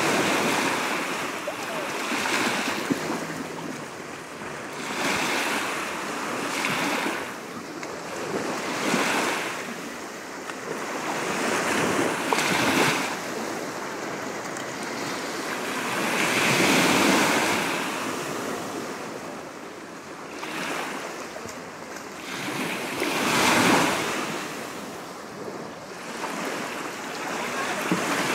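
Mediterranean surf breaking on the shore, each wave swelling into a rushing wash and fading again every few seconds.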